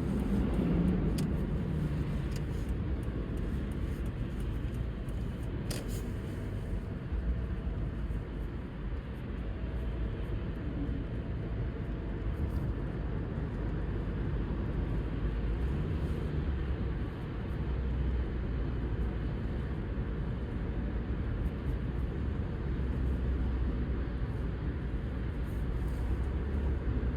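Car driving on a road: a steady low rumble of engine and tyre noise, with a few faint clicks.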